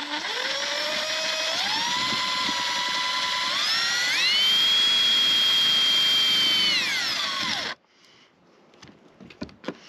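Cordless impact driver spinning a screw into the trailer's metal rear panel: a steady motor whine that climbs in pitch in steps, then cuts off sharply about three-quarters of the way through. The screw is not biting, and a pilot hole is needed.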